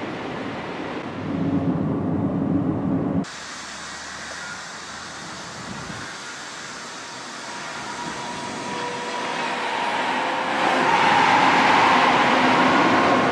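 Shanghai Maglev train passing at speed on its elevated guideway: a rushing whoosh that builds over several seconds and is loudest near the end. Before it, a lower rumble from the station cuts off abruptly about three seconds in.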